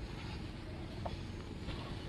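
Faint rustling and crunching of bare hands working a dry heap of wheat flour and bran groundbait, over a steady low rumble.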